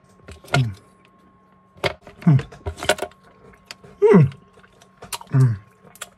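A man eating a cherry Airhead taffy candy: sharp clicks and crackles of wrapper and mouth, with about four short hummed "mm" sounds, each falling in pitch.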